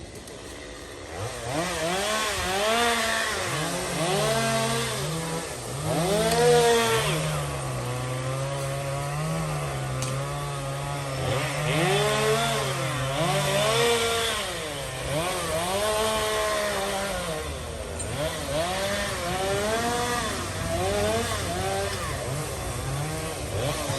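Chainsaw running and revving up and down repeatedly while cutting, its pitch rising and falling every second or two. A lower, steady engine note runs underneath for several seconds in the middle.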